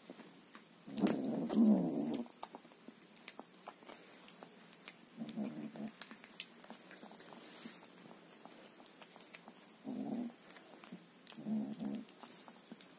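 A hungry ginger kitten eating food from a plastic bowl, with quick wet chewing and smacking clicks throughout. Four short low rumbles come from the kitten as it eats, the loudest about a second in.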